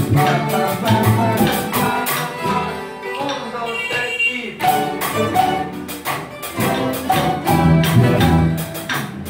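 A plucked-string ensemble of guitars and mandolin-type instruments playing a piece together. The playing thins out and drops in level around the middle, then comes back full.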